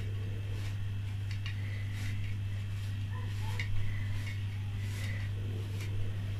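A steady low hum, with faint, irregular light taps and handling noises from hands tucking and folding the edges of pizza dough in a baking pan.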